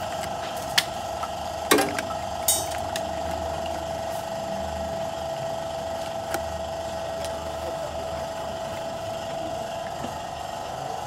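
Plastic screw cap of a 5-litre engine oil jug being twisted off, giving a few sharp clicks and a short rattle of clicks about two and a half seconds in. A steady high hum runs underneath.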